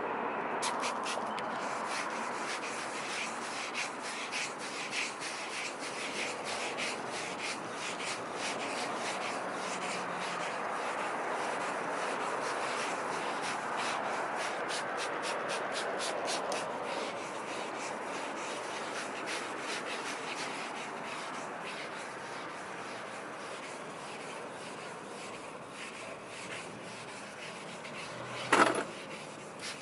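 Wet sandpaper on a firm sanding block rubbed back and forth by hand over the painted fender, in quick, regular strokes, cutting the orange peel out of the clear coat. A brief loud knock near the end.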